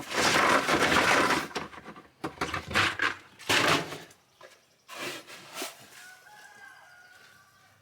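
Chickens clucking and squawking, loudest in the first second and a half, with a drawn-out call later on.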